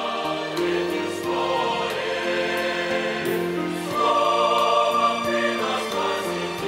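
Mixed choir of men's and women's voices singing a Russian-language hymn in parts, with long held notes, swelling louder about four seconds in.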